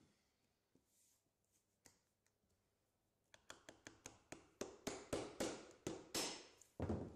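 Claw hammer driving a 40 mm poly pin through a roof edge trim's fixing slot. A few faint taps come first. Then, about three seconds in, a run of quick strikes starts at about four a second and grows louder toward the end.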